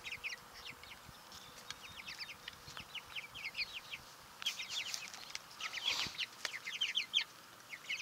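A flock of young Cornish Cross meat chickens peeping: many short, high chirps that fall in pitch, coming in quick overlapping clusters and busiest in the second half.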